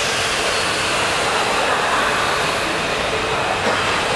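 Tokaido Shinkansen train running on the track by the platform: a steady rush of wheel and air noise.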